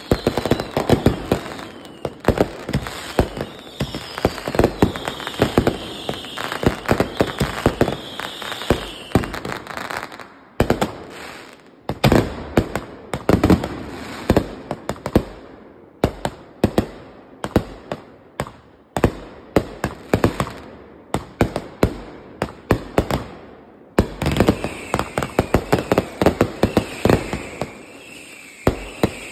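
Aerial fireworks launching and bursting in rapid succession, a dense run of sharp bangs and crackling. High whistles falling in pitch sound over the first several seconds and again near the end.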